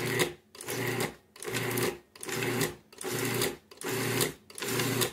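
Food processor pulsed repeatedly, its motor spinning up for about half a second at a time and stopping, about seven pulses in a row, as it mixes the sour cream and egg mixture into flour and cold butter for pie crust dough.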